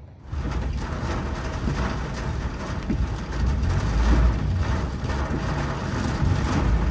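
Vehicle noise: a steady rushing sound with a low rumble, coming in suddenly just after the start.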